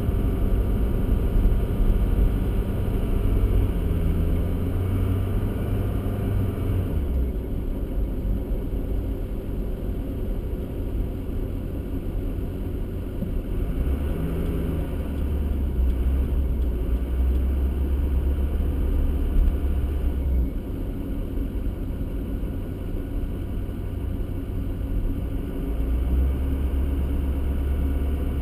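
Car driving on a slushy road: a steady low engine and road rumble with tyre hiss, the hiss thinning out about seven seconds in.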